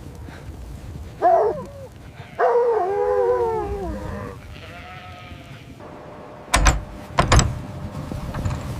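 Herded livestock bleating: a short call, then a longer wavering one and a faint third. Two sharp knocks follow near the end.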